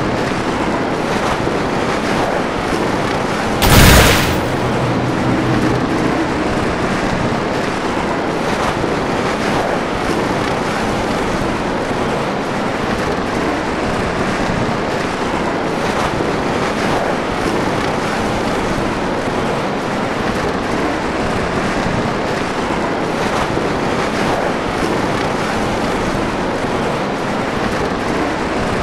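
Steady blizzard wind blowing, with a sudden loud burst about four seconds in.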